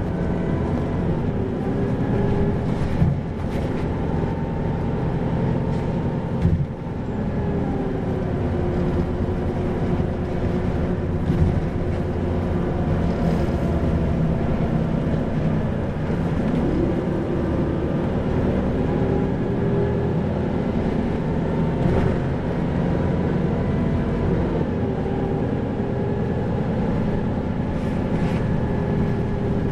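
Isuzu 2PG-LV290N3 city bus's four-cylinder turbodiesel running while the bus drives. The engine's pitch rises and falls several times as it gathers speed and eases off, with a few short knocks.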